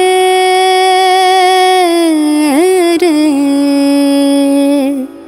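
A woman's voice holding one long sung note at the end of a line of a Bengali folk song. About halfway through it wavers and settles a little lower, then stops about five seconds in, leaving soft instrumental backing.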